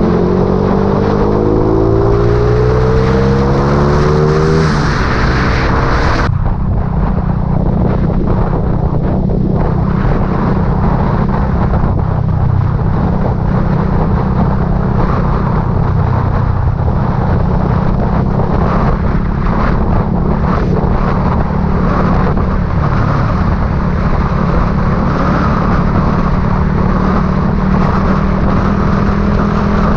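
Vehicle engine running on the move, its pitch rising over the first few seconds as it accelerates, then holding steady under road and wind noise.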